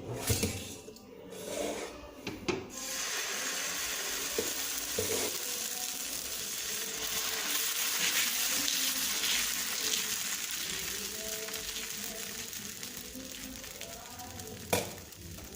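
Dosa batter sizzling on a hot tawa, a steady hiss that swells and then slowly dies down. A few utensil knocks come at the start and one sharp tap near the end.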